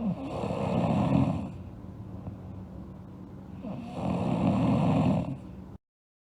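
A sleeping girl snoring: two snores, each about a second and a half long, roughly three and a half seconds apart, over a steady low hum. The sound cuts off suddenly near the end.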